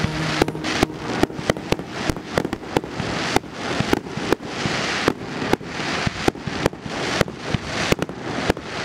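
Fireworks display: a rapid, irregular string of sharp bangs from bursting shells, about three or four a second, over a continuous crackling hiss.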